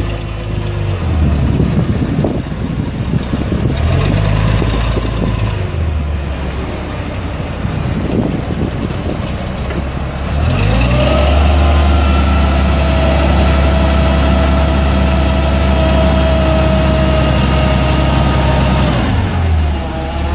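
Propane-fuelled Clark forklift engine running as the truck drives, then revving up about ten seconds in and holding the higher speed with a steady whine over it while the mast lifts the forks, dropping back to idle near the end.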